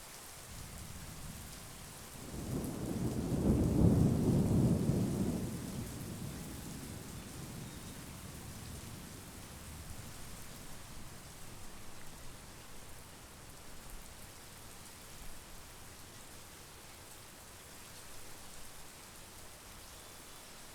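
Steady monsoon rain with a low rumble of thunder that swells about two seconds in, peaks a couple of seconds later and fades away over the next few seconds, leaving the rain.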